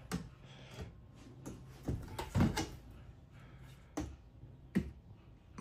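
Knocks and clatters from handling the hinged clear acrylic front door of a reptile enclosure as it is swung open, with about six separate thumps, the loudest about two and a half seconds in.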